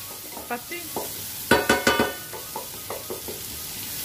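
Chopped onions sizzling as they are sautéed in a non-stick electric frying pan, stirred with a wooden spatula that knocks and scrapes against the pan. A quick run of louder clacks comes about a second and a half in.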